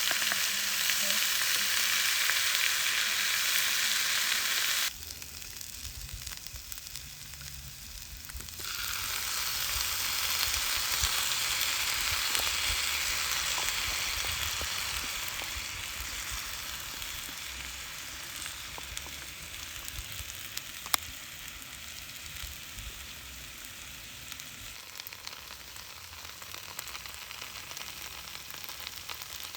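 Food sizzling as it fries in a pan. The sizzle cuts off suddenly about five seconds in, comes back a few seconds later and slowly dies down.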